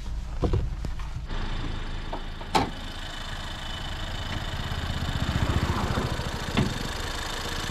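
Truck camper's engine idling steadily with the hood open, with a sharp metallic clunk about two and a half seconds in and a couple of lighter knocks. The idle itself sounds normal: the loud noise heard while driving is not coming from the engine.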